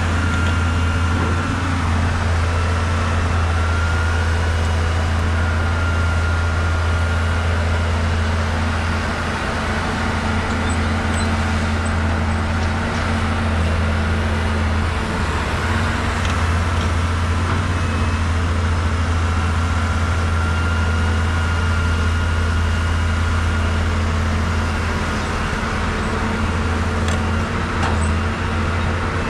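Caterpillar 320 hydraulic excavator's diesel engine running steadily under load as it digs and loads a dump truck: a constant low drone with a faint high whine that wavers slightly above it.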